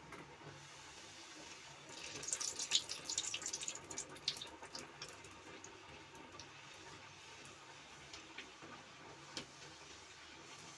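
Puri deep-frying in hot oil in a kadhai: a steady sizzle, with louder crackling between about two and five seconds in.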